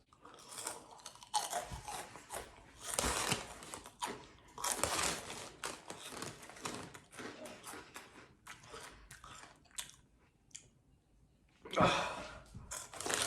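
Loud, close-up crunching and chewing of spicy Cheetos in the mouth, irregular and continuous, with a short pause about three-quarters of the way through before a loud bite.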